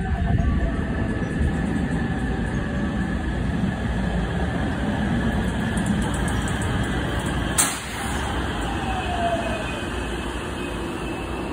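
JR West commuter electric train pulling into the platform, its wheels rumbling steadily on the rails. About three-quarters of the way through there is one sharp clack, then the train's motor gives a short falling whine as it slows.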